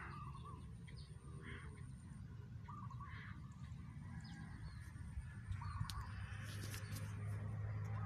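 Birds calling over an open rice paddy: a short warbled call repeated about every two to three seconds, with other brief calls higher in pitch in the first half. A low steady hum builds in the second half.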